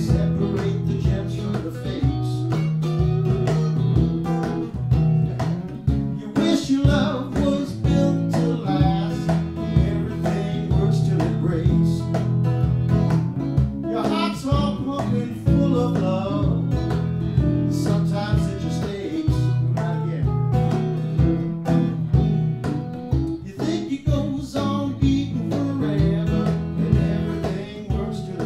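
Live acoustic music: a guitar playing with a cajon keeping the beat, and a man's voice singing at times.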